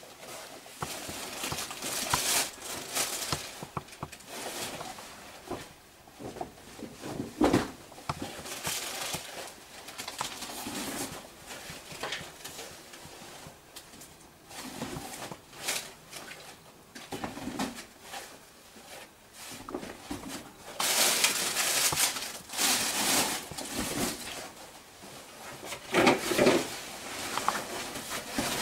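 Irregular rustling, scraping and knocking of caving gear being handled: plastic packets crinkling and a tackle bag being shifted, with a louder stretch of rustling about three-quarters of the way through.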